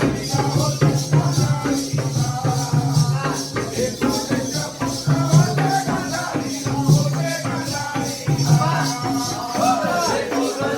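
Jakhadi (Balya dance) folk music: a drum and jingling metal percussion keep a steady beat of about four strokes a second. A singing voice comes in near the end.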